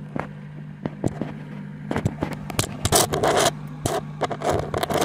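Scraping and clicking handling noises, a few sharp clicks at first, then a run of rough scrapes through the second half, over a steady low hum.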